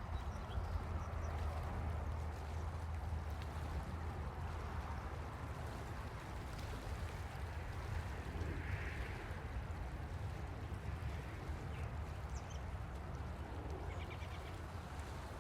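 Steady rushing background noise with a low rumble underneath, with a few faint, short, high bird chirps near the end.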